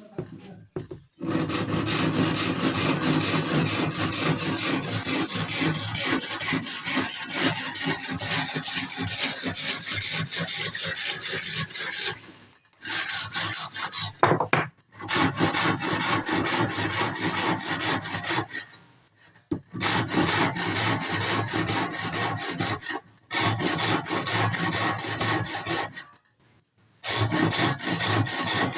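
Rapid rasping strokes of a cutting tool working wood, in long bouts broken by several short pauses.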